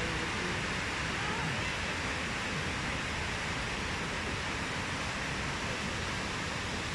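Water of the Trevi Fountain cascading over its rock work into the basin: a steady rushing.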